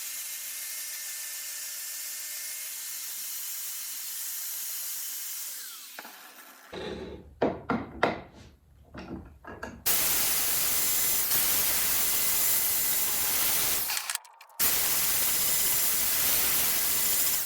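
Angle grinder with a 60-grit flap disc grinding the steel head of a 3 lb hammer, shaping its rounded face. The grinder runs down about six seconds in, with a few seconds of irregular knocks and scraping. Grinding then resumes louder about ten seconds in, with a brief break near the end.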